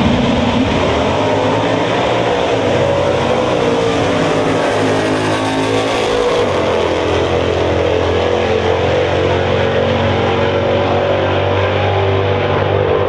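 Two drag-racing muscle cars launching together and running down the strip at full throttle. Their engines are loud and continuous, and the pitch shifts several times during the run.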